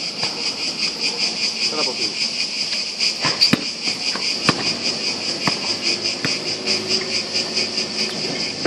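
Cicadas buzzing loudly and steadily in the trees, a shrill high drone pulsing about four times a second. A few separate knocks of a basketball bouncing on the hard court cut in midway.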